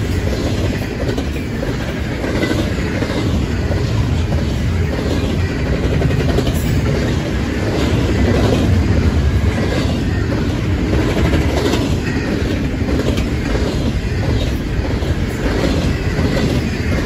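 Loaded double-stack container well cars of an intermodal freight train rolling past: a steady, loud rumble of steel wheels on rail with a clickety-clack of wheels over the rail joints.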